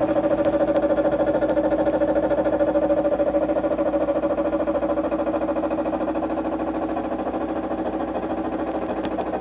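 Toshiba TWD-BJ130M4G washing machine on its final spin, making a loud rubbing, grinding noise with a steady hum that pulses about five times a second. It is a severe friction noise with only a light load of socks, so imbalance is unlikely; the owner suspects a failed internal shock absorber.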